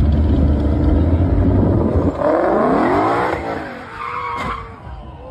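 Ford Shelby GT500's supercharged V8 running with a low rumble, then revving hard with a rising pitch about two seconds in as the rear tyres spin and squeal in a burnout.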